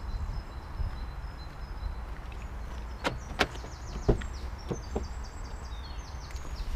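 Car door being opened: two sharp clicks, then a louder latch click about four seconds in as the handle is pulled, followed by lighter clicks as the door swings open. A low steady rumble runs underneath.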